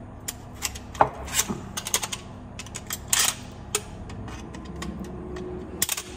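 Flat-blade screwdriver prying at the metal snap ring of a garbage disposal's sink-mounting assembly: irregular metal-on-metal clicks and scrapes, the sharpest about a second in and again about three seconds in.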